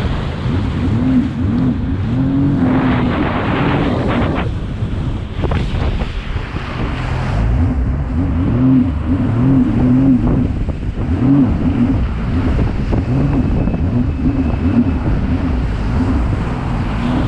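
A Sea-Doo GTX jet ski's freshly rebuilt engine running under way, its pitch rising and falling with the throttle. Wind buffets the microphone throughout, with a burst of water spray about three seconds in.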